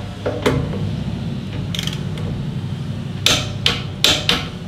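Click-type torque wrench ratcheting and clicking as it tightens a motorcycle's front brake caliper mounting screw toward a 28–38 ft-lb spec. There are a few scattered clicks, then four quick clicks in a row near the end.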